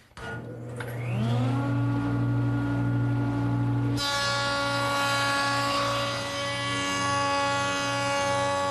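Woodworking jointer switching on and spinning up to a steady motor hum. About four seconds in, a sudden higher, denser whine starts, as boards are fed across the cutterhead to true their edges for a tight glue joint.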